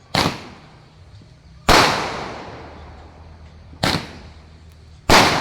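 Four firecracker bangs, one to two seconds apart, each echoing away afterwards; the second and the last are the loudest.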